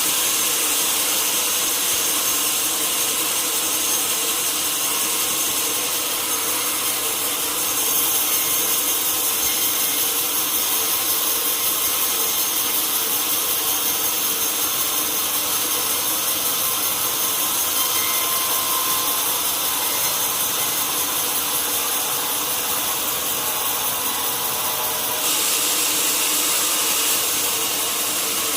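Sawmill saw cutting lengthwise through a large log: a continuous high, hissing cutting noise with a faint steady whine. It grows louder about eight seconds in and again near the end.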